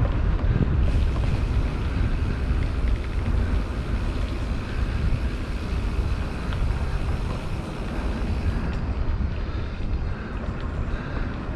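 Wind buffeting the microphone of a helmet-mounted action camera on a moving bicycle, with the hiss of the Diamondback Haanjo gravel bike's tyres rolling on asphalt; steady throughout.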